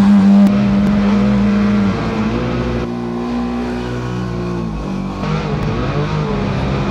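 A small boat's motor running with a steady hum, its pitch dropping a little about two seconds in and wavering again around five seconds as the speed changes.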